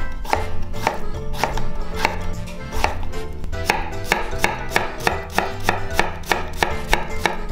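Chef's knife chopping zucchini on a wooden cutting board, dicing the strips into a coarse mince. The knife strikes the board in a steady rhythm of about three to four cuts a second.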